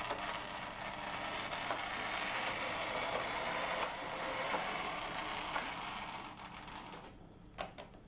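OO gauge model N2 tank locomotive running under power with a scrap wagon: its small electric motor and gears whirring and its wheels clicking over the track and points. The sound falls away about seven seconds in as the loco draws off to the far end, followed by a couple of short clicks.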